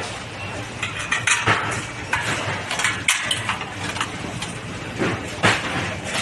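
Metal dish-rack frame tubes and bolts clinking and knocking as the frame is fitted together by hand: a run of irregular sharp clicks over a steady low hum.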